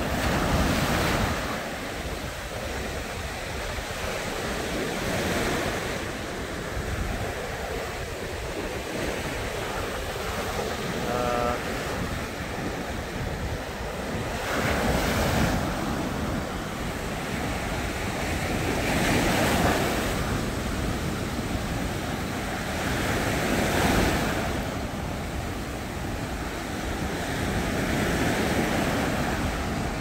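Sea surf breaking on a sandy beach: a continuous wash of foam and water that swells every few seconds as each wave crashes and runs up the shore, with wind rumbling on the microphone.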